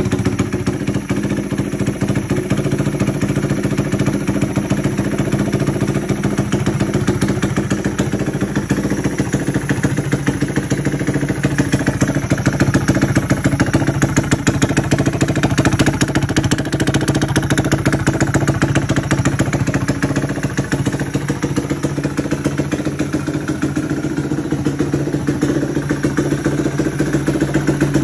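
Honda Grom's single-cylinder engine, bored out to 181cc with a big-bore kit, idling steadily on its first run after the rebuild, with a fast even exhaust pulse.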